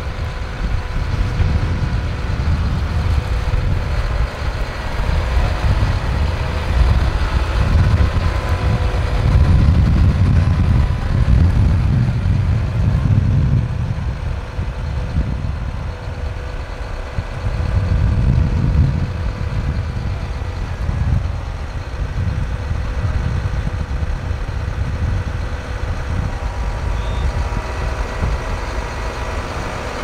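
Tractor engine running steadily with a steady whine, while wind buffets the microphone in gusts.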